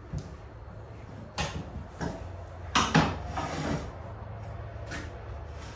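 Loose tiles being handled and shifted on the floor: a series of short, sharp knocks with some scraping, the loudest about three seconds in.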